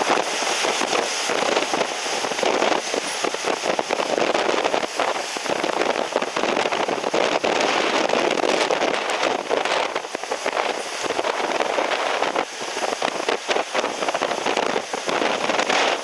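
Typhoon wind buffeting the microphone: a steady, loud rush of noise full of fine crackling, rising and falling in gusts.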